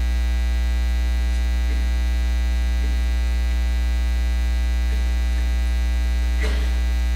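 Steady electrical mains hum with a dense stack of overtones, loud and unbroken.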